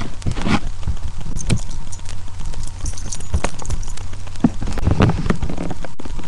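Irregular knocks, bumps and scrapes as a small dog jumps and paws about right against the webcam, over a steady low hum.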